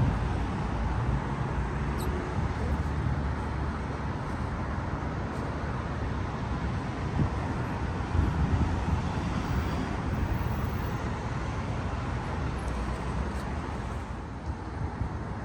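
Steady rumble of road traffic, with a vehicle engine's low hum fading out in the first few seconds.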